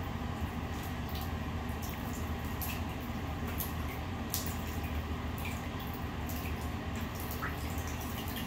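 Small splashes and drips of water as a group of ducklings paddle and dabble in a shallow bathtub, with scattered light ticks over a steady low hum.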